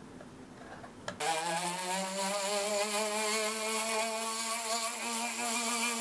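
Faint chisel scraping on wood, then about a second in a rotary tool starts up abruptly and runs steadily with its bit cutting into a hardwood disc, a whine whose pitch climbs slightly before holding steady, over a high hiss.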